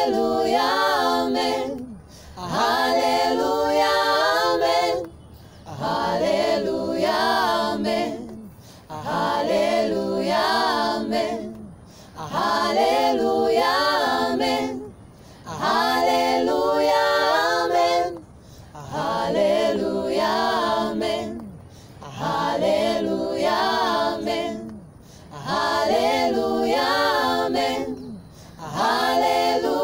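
A small mixed group of voices singing a Swahili gospel worship song a cappella in harmony, with no instruments. They repeat a short sung phrase roughly every three seconds, with a brief breath gap between phrases.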